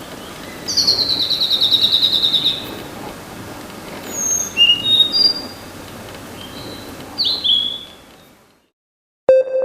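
Blue-and-white flycatcher (Ōruri) singing. First comes a fast trill of high repeated notes falling slightly in pitch, then a few clear whistled notes at different pitches, then a short downslurred note. The birdsong fades out, and synthesizer music begins right at the end.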